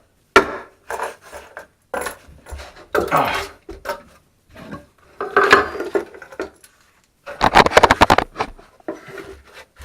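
Tools and fittings being handled and shifted about: irregular knocks, scraping and clinks, with a quick run of sharp clinks about three-quarters of the way through.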